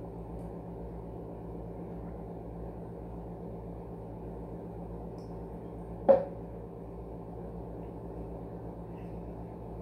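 A drinking glass set down on a glass tabletop: one sharp clink with a brief ring about six seconds in. A steady low hum runs underneath.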